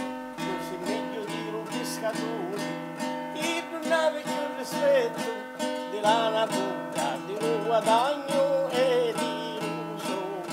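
A man singing while strumming a nylon-string classical guitar: a steady rhythm of strummed chords under a wavering sung melody with some long held notes.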